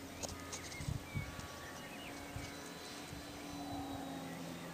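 Distant radio-controlled model airplane's motor and propeller giving a steady drone, dropping in pitch near the end.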